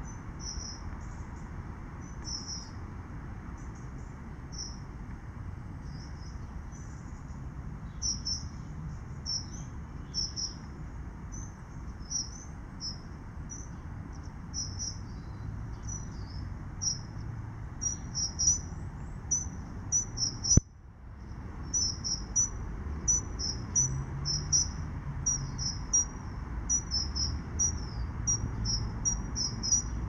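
Steady white-noise hiss under small birds' high, thin chirps and short song phrases, which come more often in the second half. The hiss drops out suddenly for a moment about two-thirds of the way through.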